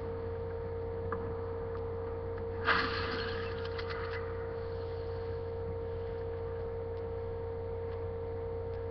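Movie trailer soundtrack playing from a speaker in the room: a steady hum with a held tone under it, and one sudden loud hit about three seconds in that fades over a second or so.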